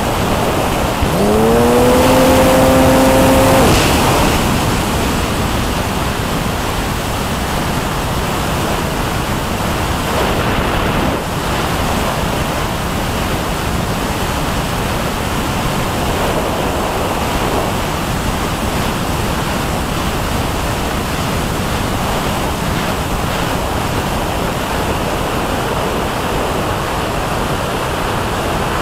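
Steady rushing of airflow over an RC model glider's onboard camera in gliding flight. About a second in, a tone with overtones rises quickly and then holds for about two and a half seconds before stopping.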